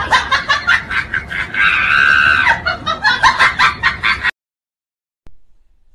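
High-pitched laughter in quick rhythmic bursts, with a drawn-out squeal in the middle. It cuts off abruptly about four seconds in, followed by a single faint click.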